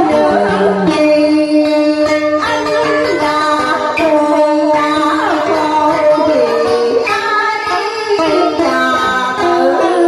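A woman singing a Vietnamese cải lương passage over instrumental accompaniment. Her long held notes bend and waver in pitch.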